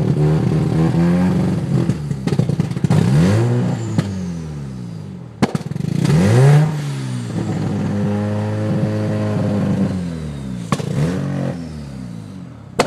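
Mazda RX-7 FC's 13B rotary engine running after a cold start and blipped a few times: the pitch rises and falls about three seconds in, again about six seconds in and briefly near the end, settling back to a steady idle between. A sharp click about five seconds in.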